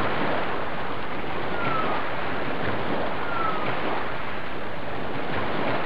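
Steady rush of waves washing on a shore. Two brief, high, falling cries sound over it, about two seconds in and again a second and a half later.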